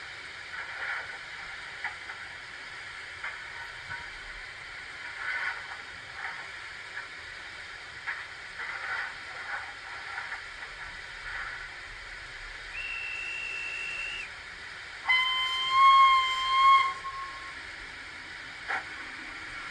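Model steam locomotive's sound decoder playing steam sounds: a steady hiss with short puffs at irregular intervals, then a short high whistle blast and, about a second later, a louder, longer whistle.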